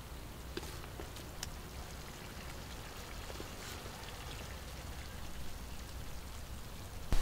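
Duck stew sizzling in a wok over a wood fire, with a few light clicks and scrapes of a metal spatula pushing food off a wooden plate into the pan.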